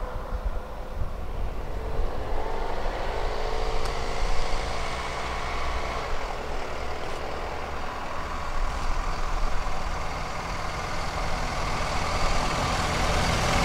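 Bus engine running as it approaches, with a whine that rises in pitch in the first few seconds and the sound growing louder near the end.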